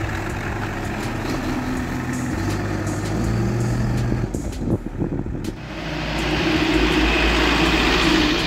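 L&T-Case backhoe loader's diesel engine running as the machine drives off, its pitch rising about two seconds in. After a brief break, a laden truck passes close by with louder engine and tyre noise.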